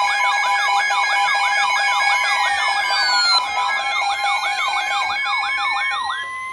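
Layered electronic alert sounds: a fast siren sweeping up and down about three times a second over steady, beeping alarm tones. A separate tone glides down about two seconds in and then rises slowly, and the siren and beeps cut off near the end.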